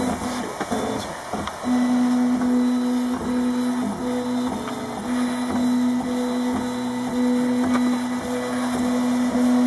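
RepRap Mendel 3D printer printing: its stepper motors hum and whine steadily as the print head moves, in stretches of about a second with brief breaks between moves. The hum is patchier for the first second and a half.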